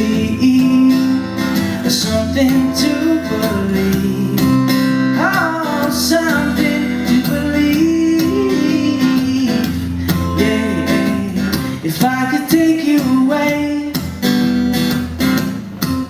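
Song performed live: acoustic guitar strummed steadily with a male voice singing over it at times.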